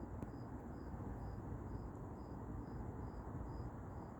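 Night insects chirping: a steady high-pitched trill with a second, slightly lower chirp repeating about twice a second, over faint low background hiss.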